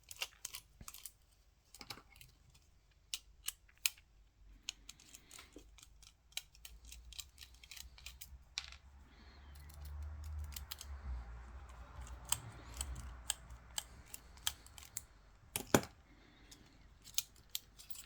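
Scattered light clicks and taps of a screwdriver and small metal and plastic parts of a Canon EOS 5D camera body being handled during disassembly. A low rumble of handling comes in the middle, and one sharper click comes a few seconds before the end.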